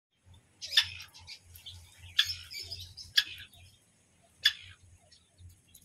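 Grey francolins (teetar) calling: four short, sharp calls about a second apart, with fainter chirps between them.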